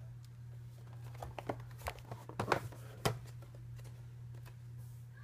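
Cardboard model box being handled and turned over on a table: a quick run of light taps and knocks, the loudest about two and a half and three seconds in, over a steady low hum.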